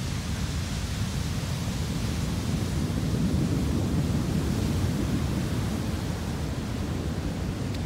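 Ocean surf breaking on a beach of black lava stones: a steady rumble with a hiss above it, swelling a little around the middle.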